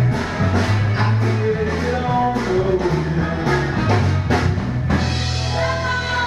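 Rock song with a singer over drums, bass and guitar. The drum beat stops about five seconds in and a held note rings on.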